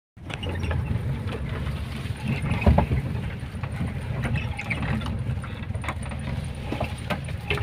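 Lowered 1985 Toyota Kijang driving over a rough dirt track, heard from inside the cabin: a steady low engine drone with scattered knocks and rattles, the loudest about two and a half seconds in.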